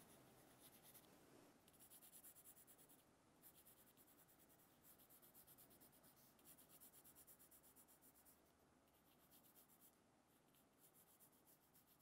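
Very faint scratching of a coloured pencil shading on paper, in short runs of quick back-and-forth strokes with pauses between them.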